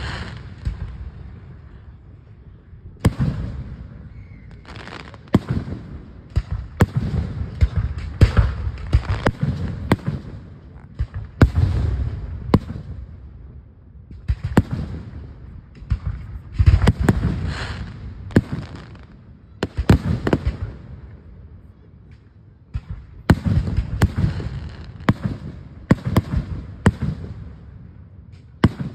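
Aerial firework shells bursting: sharp bangs in clusters of several every few seconds, each trailing a low rumbling echo.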